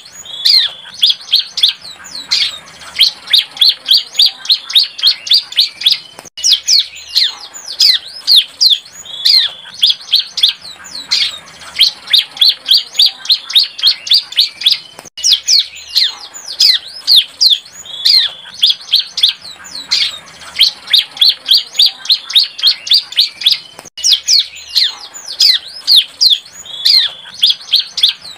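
Young bar-winged prinia (ciblek) singing rapid runs of sharp, downward-sweeping chirps, about four or five a second, still learning its song. The same sequence of phrases repeats about every nine seconds, as a looped lure call.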